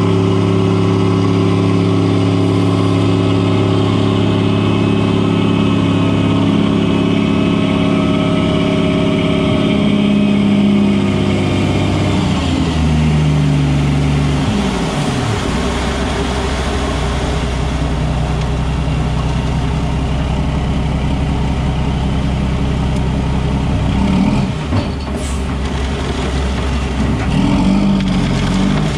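Mack CH613 truck's diesel engine running at raised revs while the dump trailer's hydraulic hoist lifts the box. About twelve to fifteen seconds in, the revs fall away and the engine settles to a lower, steady idle.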